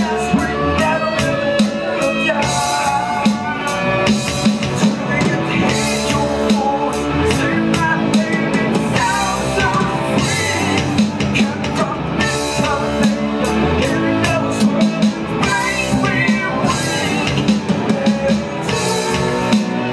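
Live rock band playing through a PA: drum kit keeping a steady beat under electric guitars, bass and keyboard, with vocalists singing into microphones.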